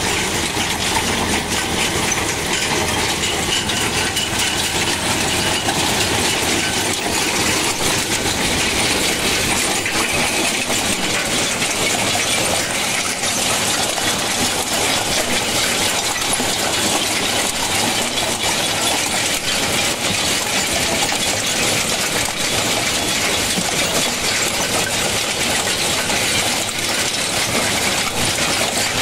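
Tractor-drawn stone picker at work: a steady, dense rattling clatter of stones and soil shaken along its belt-driven sieve conveyor, over the New Holland tractor's engine running under load.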